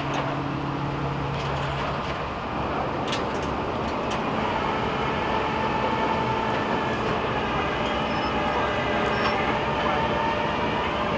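Steady roar of freeway traffic, with a few faint clicks about three to four seconds in.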